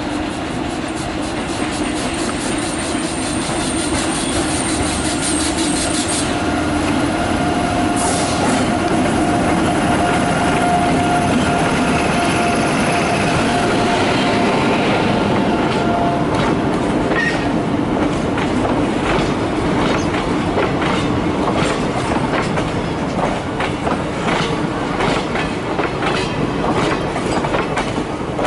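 Indian Railways WAP-7 electric locomotive passing close by, hauling a long train of passenger coaches: a steady rumble of steel wheels on rail, with a whine for several seconds in the middle. A rhythmic clickety-clack of the coach wheels over rail joints takes over in the second half.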